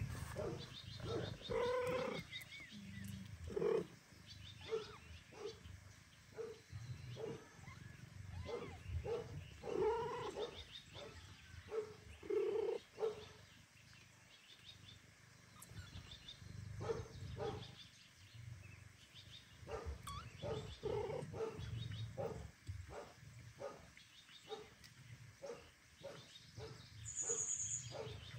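Cats meowing: many short meows a second or so apart, with a few longer, louder calls about two and ten seconds in.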